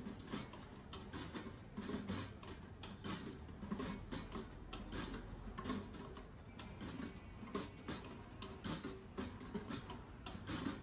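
Metal spoon clicking and scraping against a stainless steel food pan as food is stirred and scooped, in quick irregular ticks, with a low background murmur underneath.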